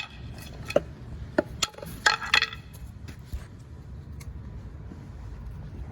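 Metal tool striking the track undercarriage of a Cat 299 skid steer: several sharp metallic taps in the first two and a half seconds, a couple around two seconds in ringing briefly, then only a low steady background. This is tapping the track to find a bad roller.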